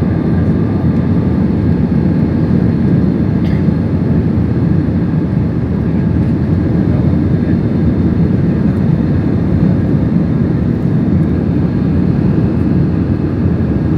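Steady, loud low roar of a jet airliner's engines and rushing air during takeoff, heard from inside the cabin.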